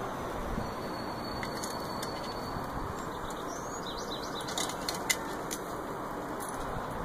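Metal grill tongs clicking against a charcoal grill's grate as grilled meat is lifted off. A few sharp clicks come about four and a half to five and a half seconds in, the loudest one about five seconds in, over a steady outdoor hiss.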